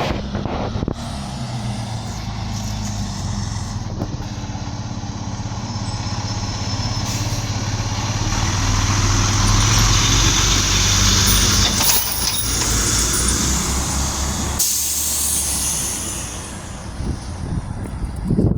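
Fire engine's diesel engine running, growing louder toward the middle, with its air brakes hissing suddenly about fifteen seconds in.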